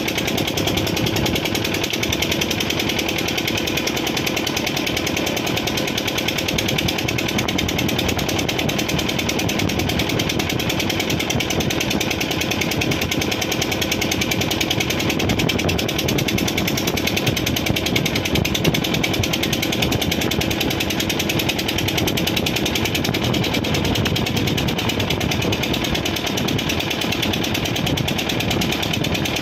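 Motorboat engine running steadily with a fast, even chugging.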